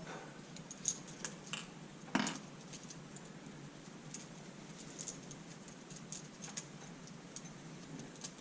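Light clicks and taps of a new cylinder base gasket and small parts handled on a motorcycle engine's crankcase, with one louder knock about two seconds in.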